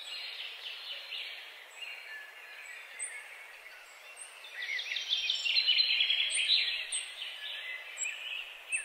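Many small birds chirping and twittering over faint background noise. The chirps grow dense and loudest about halfway through, with thin high calls repeating throughout.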